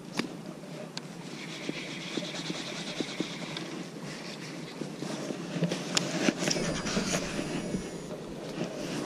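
Baitcasting reel handled: a fine, even whirring for about two seconds, then a few sharp clicks and knocks over a low rumble.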